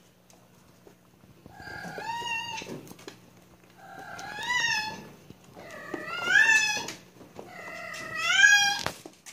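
Kitten meowing: four long, drawn-out meows, about one every two seconds, each rising in pitch and then falling away.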